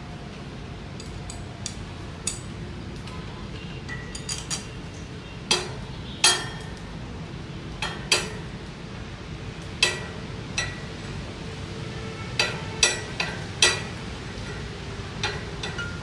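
Irregular sharp metal clinks and taps of a T-handle socket wrench on the bolts as a pump is bolted onto a mini tiller, about fifteen strikes in all, over a steady low hum.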